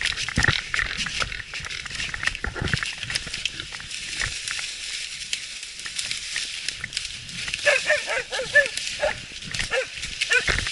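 Footsteps crunching through dry leaf litter and brushing past twigs, then from about two-thirds of the way through, a run of short high-pitched animal cries.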